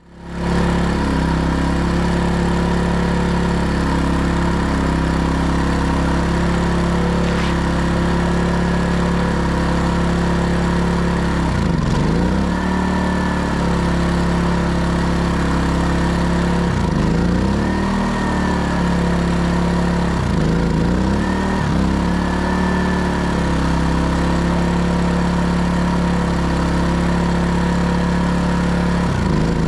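Erayak 4500PD dual-fuel inverter generator engine running steadily on propane. Its speed sags and recovers a few times, about a third of the way in, just past halfway, and near the end, while the propane tank valve is adjusted to make sure it is open enough for the fuel flow.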